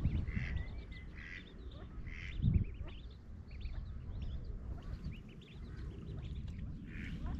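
A mallard hen and her ducklings calling on the water, a scatter of many short high calls. A low thump about two and a half seconds in.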